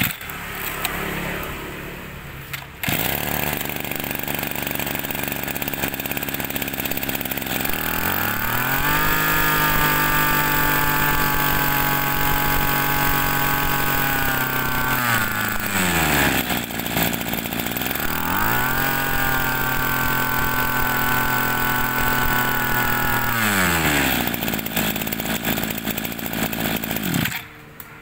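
Shindaiwa backpack brush cutter's small two-stroke engine running. It is revved up twice, each time held at a steady high pitch for several seconds before dropping back to idle, and it goes quiet shortly before the end.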